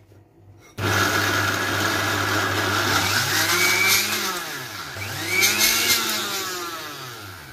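Sujata mixer grinder's motor switched on about a second in, grinding oats, dates and peanuts in its steel jar. Its pitch falls and rises again around the middle, and it winds down near the end.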